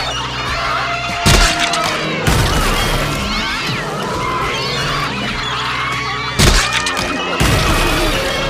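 Cartoon sound effects over background music, with sliding, chirping tones and two sudden loud crashing hits: one about a second in and another about six seconds in.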